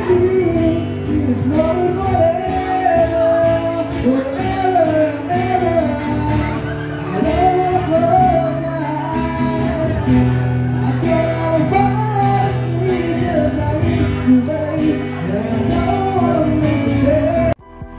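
A singer with acoustic guitar accompaniment, performing a melodic song. The music cuts off suddenly just before the end.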